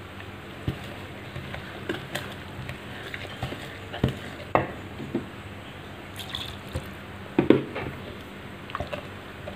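Metal balloon whisk stirring a thick, wet batter in a glass bowl: a squelching stir broken by irregular clicks and taps of the wires against the glass, with the loudest knocks about three quarters of the way through.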